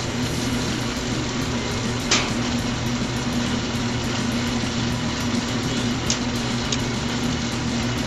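Bluerock Model 945 wire stripping machine running steadily: its single-phase 3 HP electric motor hums as it drives the gear- and belt-driven rollers and cutters. A sharp click comes about two seconds in, and two lighter ones near the end.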